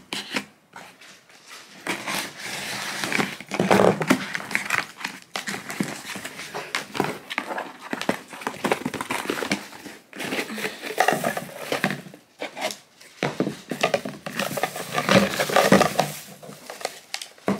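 Cardboard box being cut open with scissors and its flaps pulled open, with plastic packaging crinkling near the end as the pots inside are unwrapped.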